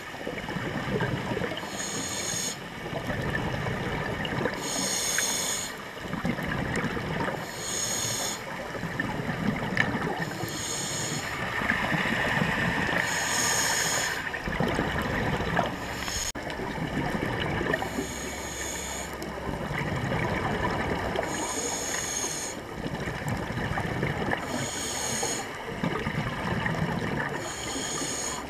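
A scuba diver breathing through a regulator underwater: exhaled bubbles gush out in a hissing burst about every three seconds, over a steady watery rumble.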